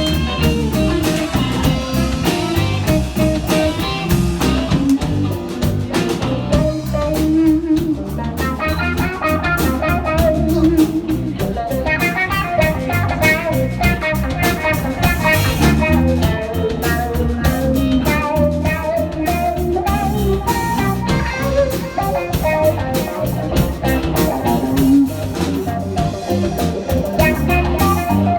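Live blues band playing an instrumental passage of a slow blues: a lead guitar plays a wavering melodic line over drum kit and bass.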